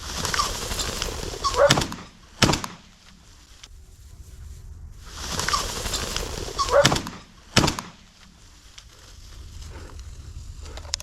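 A cock pheasant cackling as it flushes, followed about a second later by a sharp shotgun shot. The same sequence is heard twice.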